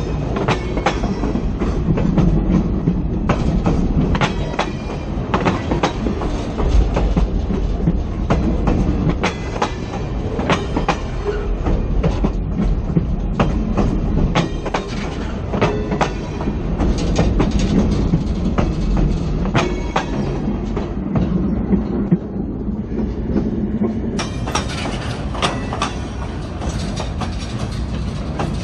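Freight train rolling along the track, its steel wheels clicking sharply and irregularly over the rails above a steady low rumble.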